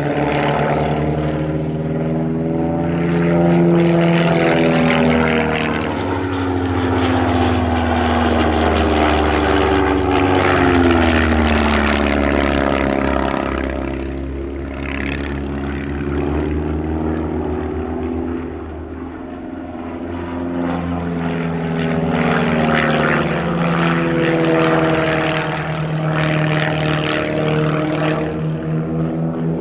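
Piston engine and propeller of a Van's RV homebuilt aerobatic aircraft, droning steadily through its manoeuvres. The pitch sweeps slowly down and back up as the plane changes attitude and distance, and it grows briefly quieter around the middle.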